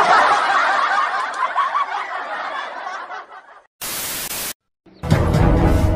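A group of people laughing, starting suddenly and lasting about three and a half seconds, then a brief hiss of TV static, then music starts near the end.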